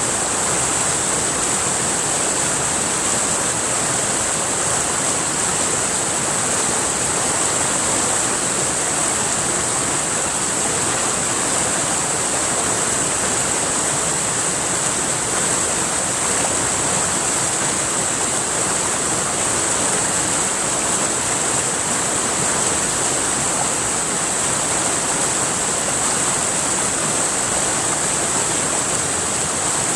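River water rushing and splashing, a steady even rush with no breaks. A steady high-pitched buzz runs over it, joined by a fainter, even higher one near the end.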